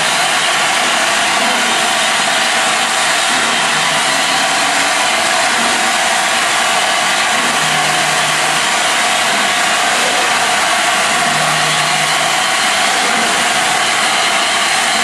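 LNER A4 Pacific steam locomotive standing with steam escaping in a loud, steady hiss that neither rises nor falls.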